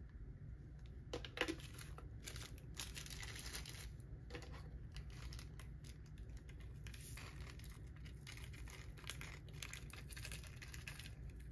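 Faint, fine rattling of small diamond-painting drills trickling out of a plastic drill tray's pour spout into a small clear container, with light clicks of the plastic being handled.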